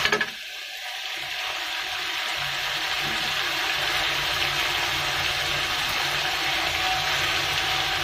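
Rui fish and spice paste sizzling steadily in a wok. The sound drops away just after the start and builds back up over the next two seconds.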